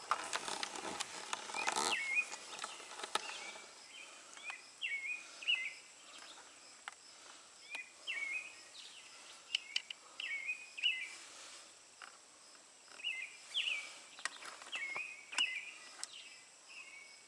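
A bird calling over and over in short hooked chirps, about one a second, with scattered small clicks of a wrench working on a brass hose fitting. Rustling handling noise in the first couple of seconds.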